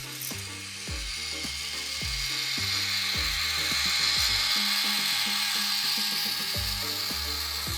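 K'nex roller coasters running: plastic chain lift and gears clattering with a steady ratcheting rattle that grows louder toward the middle.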